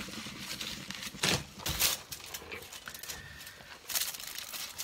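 Light handling noises: a few short crinkles and knocks from the foil-wrapped board on the spin turntable, held in gloved hands, over a quiet background.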